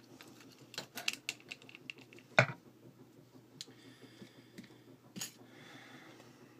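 Small metal clicks and taps from handling a disassembled pin-tumbler lock's plug and parts, with one sharper knock about two and a half seconds in.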